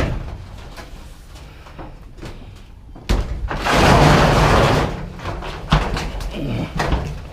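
Scrap being shoved and dragged onto a truck bed: a sudden loud scraping clatter starting about three seconds in and lasting about two seconds, then a couple of sharp knocks.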